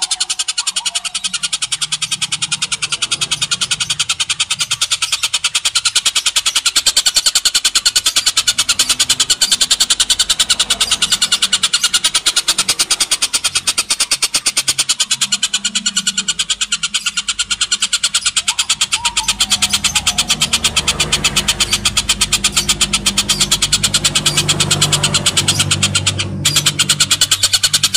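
Oriental dollarbird giving its harsh, rapid chattering call, a fast rattle of repeated notes kept up without pause, briefly breaking off near the end. A low hum runs underneath in the second half.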